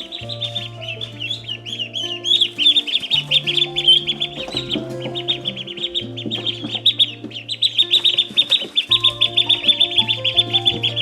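A crowd of baby poultry peeping: many rapid, high chirps overlapping without a break. Background music with steady bass notes plays underneath.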